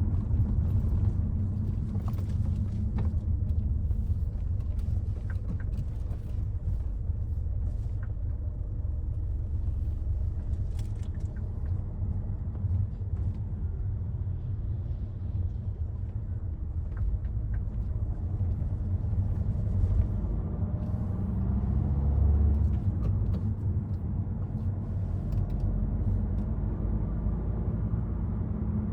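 Citroën C5 Aircross driving, a steady low rumble of road and engine noise, with a faint engine note rising about two-thirds of the way in.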